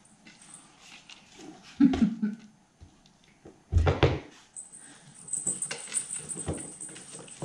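A short low vocal sound about two seconds in, then a loud thump with rustling as the woven seagrass basket top of a cat perch is handled and set onto its sisal-wrapped post, followed by softer rustling and small knocks.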